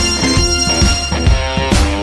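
Upbeat background music with a steady beat and guitar.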